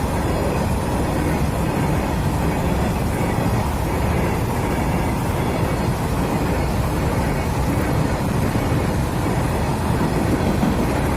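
Train running past at speed: a steady, even rolling noise of wheels and cars on the track, with no horn.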